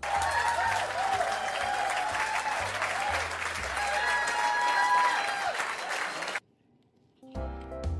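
Crowd applause with cheering voices, dense and steady, cutting off abruptly about six seconds in. Background music starts again near the end.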